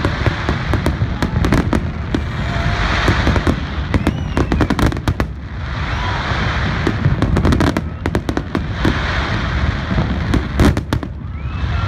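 Aerial firework shells bursting overhead: rapid sharp bangs coming in clusters, with stretches of crackling hiss between them.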